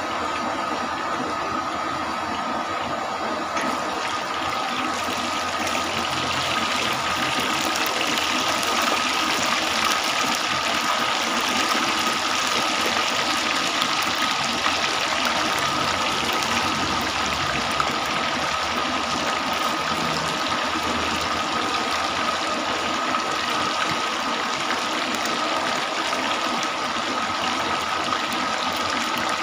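Chicken pieces sizzling as they deep-fry in a wok of hot oil, the frying getting louder about four seconds in as the oil froths up around the chicken. A steady high tone runs under it throughout.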